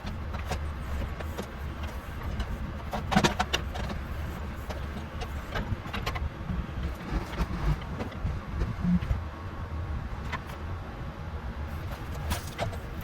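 John Deere backhoe's diesel engine running steadily under work, with scattered sharp knocks and snaps from the machine working among trees, the loudest about three seconds in.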